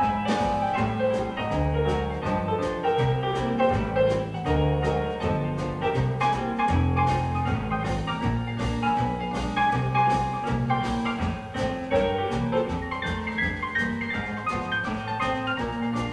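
Dixieland jazz band playing live: piano over upright bass notes and drums, with regular cymbal strokes keeping the beat.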